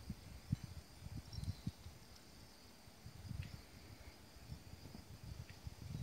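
Insects chirring steadily in the grass, a thin high drone, with irregular low gusts of wind buffeting the microphone.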